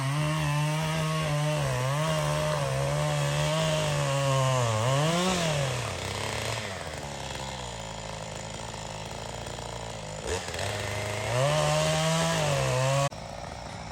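Gas chainsaw running at high speed with its pitch wavering, dropping to a lower, quieter idle midway, revving up again near the end, then cutting off suddenly.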